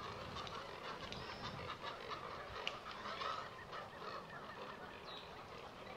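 A waterbird nesting colony of egrets, herons, roseate spoonbills and cormorants calling: a steady chorus of many overlapping short calls at once, with one sharp click about two and a half seconds in.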